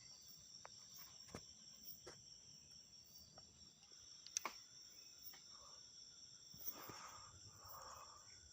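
Faint night insects, crickets, giving a steady high-pitched drone, with a few faint clicks.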